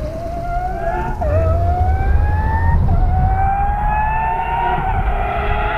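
Lamborghini Aventador SVJ's naturally aspirated V12 through a Gintani F1-style exhaust, accelerating hard through the gears. A high, rising wail drops back at each of three quick upshifts and keeps growing louder as the car approaches.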